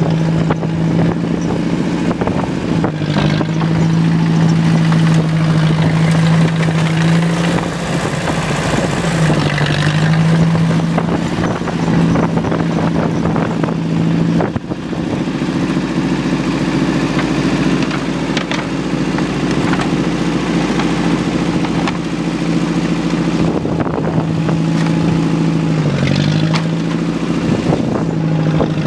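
Small engine running steadily at a constant speed, its pitch sagging briefly a few times.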